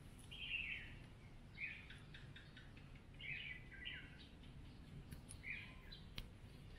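Bird calling in the background: short chirped calls repeated about five times, roughly once a second, faint over steady outdoor background noise.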